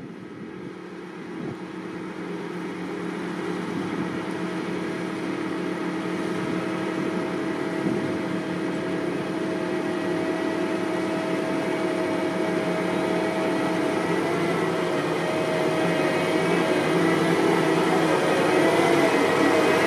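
Vervaet Hydro Trike self-propelled slurry injector running steadily as it drives across the field, growing steadily louder as it approaches, with a steady whine over the engine.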